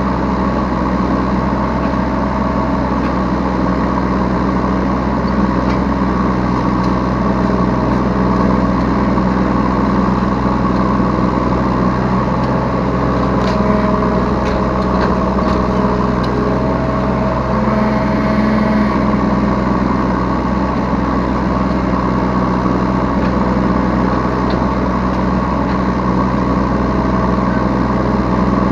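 Yanmar B3Σ 3-ton mini excavator's diesel engine running steadily, heard from the operator's seat, its tone shifting a little as the hydraulics take load while it digs and loads a truck, with a few faint clicks.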